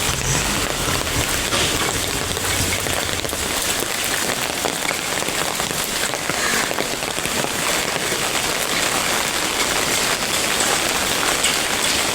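Steady rain falling and hitting surfaces, an even hiss with no break.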